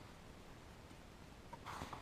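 Quiet room tone, then about one and a half seconds in a brief soft rustle of the coat fabric being handled.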